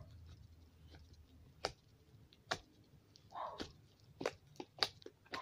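Slime being squished and pressed by hand, giving a handful of sharp little pops and clicks spaced about a second apart.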